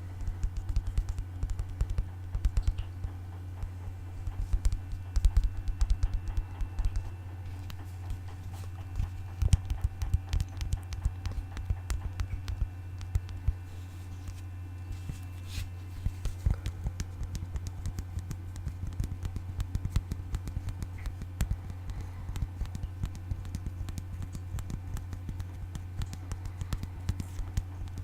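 Fingers tapping and scratching on objects: many quick, irregular taps and scrapes, with a steady low hum underneath.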